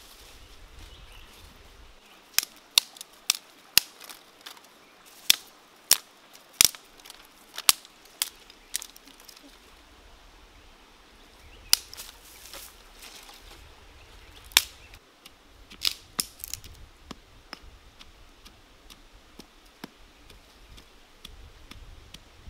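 Dry sticks being snapped by hand for firewood: a run of sharp, irregular cracks, some in quick pairs, in two spells with a short pause between them.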